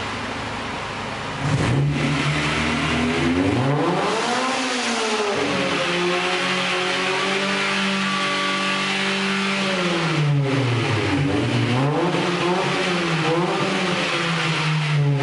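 Warmed-up Honda B16 1.6-litre DOHC VTEC four-cylinder with its stock exhaust, revved up and down. It jumps louder off idle about a second and a half in, climbs to a peak and drops back, holds a steady higher rpm for a few seconds in the middle, then gives a few shorter rises and falls near the end.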